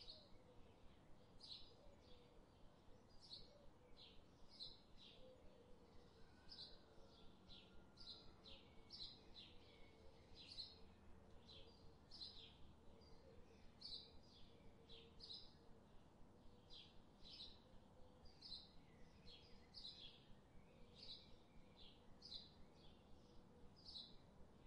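Faint scraping of a spatula against a nonstick saucepan as thick sauce is stirred, in short strokes about one to two a second.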